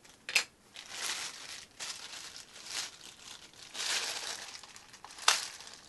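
Clear plastic bag crinkling and tearing as it is pulled open by hand, in irregular spells of rustling with two sharper cracks, about a third of a second in and again near the end.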